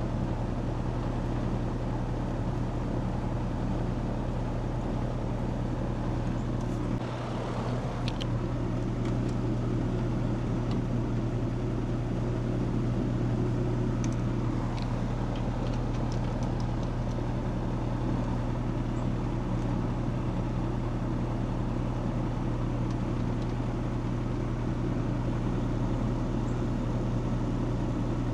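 Outdoor air-conditioner condensing unit running: a steady compressor hum with fan noise, with a few light clicks in the first half.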